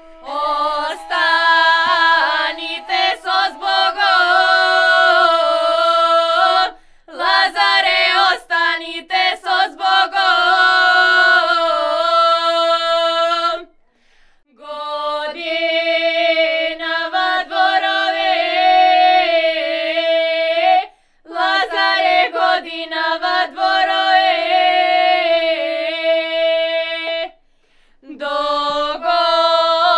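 A small group of girls singing a Macedonian lazarki (Lazarus Saturday) folk song a cappella. The song comes in four phrases of about seven seconds, each ending in a short pause for breath.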